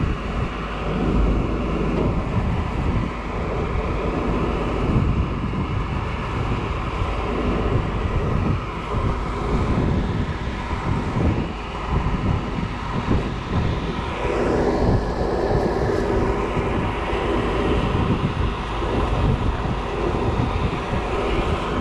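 Wind rumbling on the microphone over a steady engine hum, as of passing vehicles or boats; the hum swells briefly a little past the middle.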